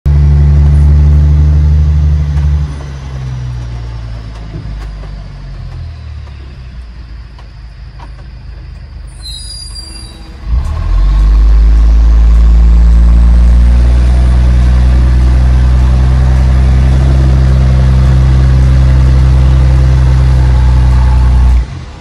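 Logging truck's diesel engine running loud and deep, heard from inside a car, a low rumble the uploader says sets the car windows vibrating. It drops away about two and a half seconds in, a brief hiss comes about nine seconds in, and the loud rumble returns just after and cuts off abruptly near the end.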